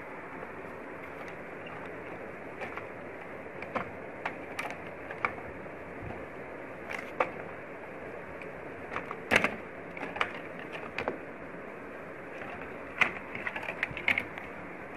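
Scattered small clicks and taps of a projector's circuit board and ribbon-cable connectors being handled and pulled loose, over a steady hiss. The sharpest clicks come about nine seconds in and in a quick cluster near the end.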